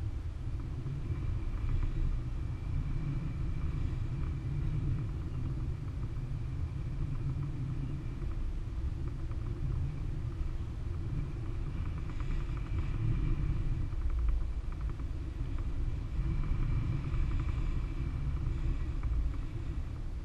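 Airflow buffeting the camera microphone during a paraglider flight: a steady low rumble that swells and eases, with a faint high steady whistle above it.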